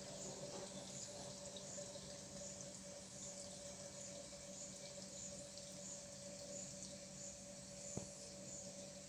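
Water running out of a DIY garden watering system, fed by its small electric pump, with a steady low hum underneath. A faint high chirp repeats about twice a second, and a single click comes near the end.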